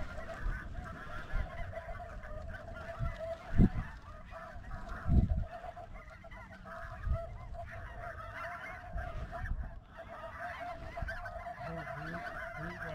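Huge flocks of snow geese calling overhead: a dense, unbroken chorus of many overlapping honks. A few short low thumps come through in the first half.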